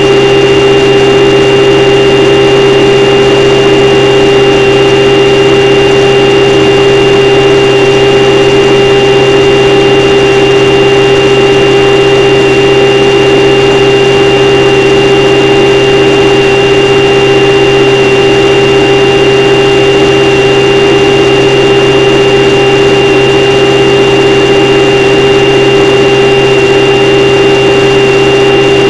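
Motor and propeller of a model airplane running at one steady speed in cruising flight, picked up very close by a camera on board: a loud, unchanging drone with several higher overtones.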